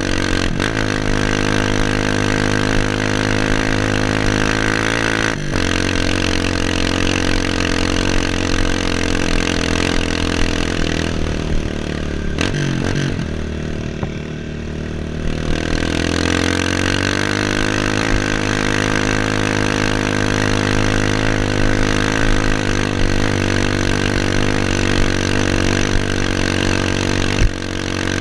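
Off-road motorcycle engine running under way, shifting gears several times. It eases off about halfway through, then revs up and pulls away again.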